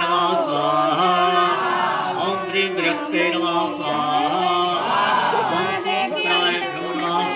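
Male voice chanting Hindu mantras in a steady, sing-song recitation, continuous throughout.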